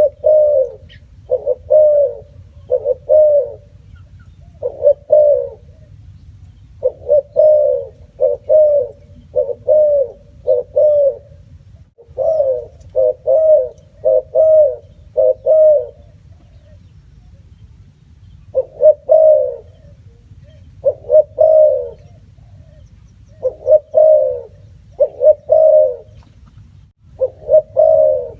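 Spotted dove cooing: short, low coo notes repeated in runs of several, with pauses of a second or two between the runs.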